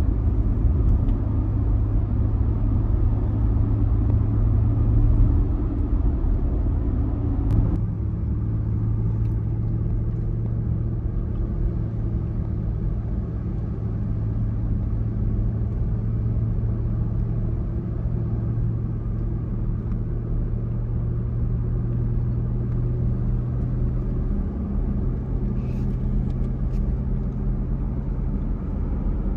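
A car driving steadily, its engine and road noise making a continuous low drone with a steady hum. The drone eases slightly about 8 seconds in.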